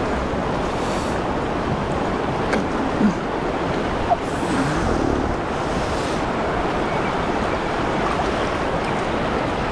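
River water rushing steadily through a fast, foamy riffle, a constant wash of running water. A couple of small knocks come through about three and four seconds in.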